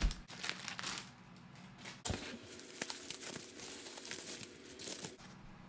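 Plastic packaging crinkling and tearing as a package is unwrapped, in irregular crackles with a louder burst about two seconds in.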